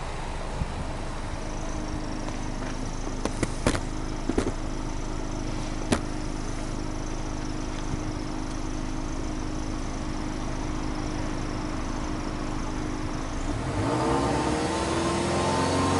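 Subaru Legacy B4 2.0GT's turbocharged EJ20 flat-four idling steadily, heard at the twin tailpipes, then revved up near the end and held at a higher speed. A few sharp clicks sound between about three and six seconds in.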